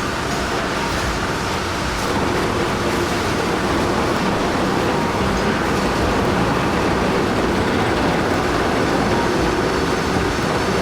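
Steady rumbling noise of a heavy vehicle running, a little louder from about two seconds in.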